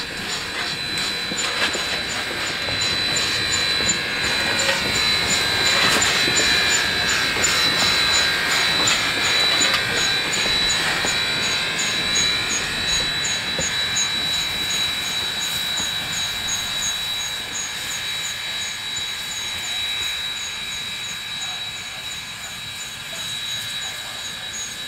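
PB15-class steam locomotive and its train passing by. The sound swells to its loudest about six to ten seconds in, with wheel and steam noise and squealing tones that bend in pitch as it goes past, then fades away. A steady high-pitched tone sits under it.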